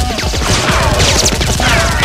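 Gunfire sound effects dubbed over a toy-blaster fight: a rapid run of shots mixed with many falling whistles, one after another.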